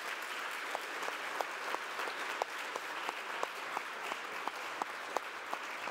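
Audience applause filling a large hall, with one nearby pair of hands clapping clearly above the rest at about three claps a second.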